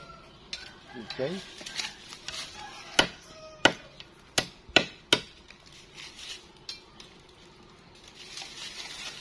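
Machete blade chopping at a thin bamboo cane, trimming off its side shoots: a run of five sharp knocks about three to five seconds in, amid lighter clicks and rustling of the cane.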